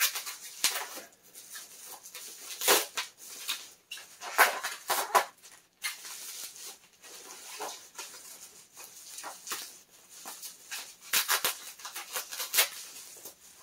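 Bubble wrap crinkling and rustling in irregular bursts as it is pulled and unwrapped by hand.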